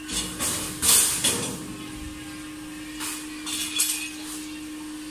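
Metal clanks and knocks as a galvanized-iron sheet door panel and its metal frame are handled and fitted on a food cart: several sharp knocks in the first second and a half, the loudest about a second in, then a few more about three to four seconds in, over a steady hum.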